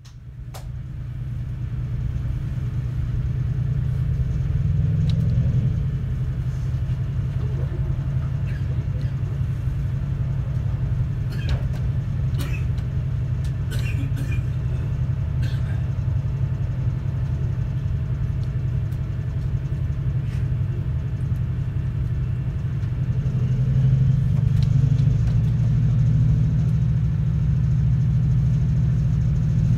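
Diesel locomotive engine of a loco-hauled passenger train droning steadily as the train pulls away, heard from inside a passenger coach. The drone swells about five seconds in and again near the end as the train picks up speed, and a few light clicks and creaks come from the coach in the middle.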